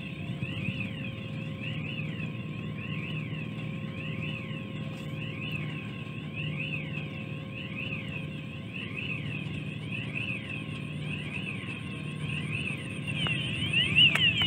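A warbling warning alarm sweeping up and down in pitch over and over, a little more than once a second, over the low steady rumble and hum of a bridge girder launcher's machinery. The alarm grows louder near the end.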